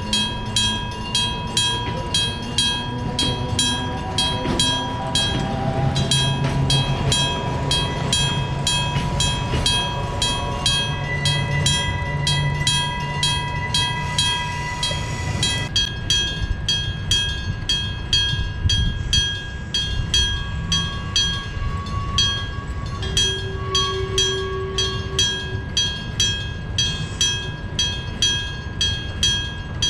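Electric-bell (denshō-type) railway level-crossing bell ringing in a steady, even beat while a train with nose-suspended (tsurikake) traction motors runs past. The train's motor whine rises in pitch over the first several seconds, over a low rumble.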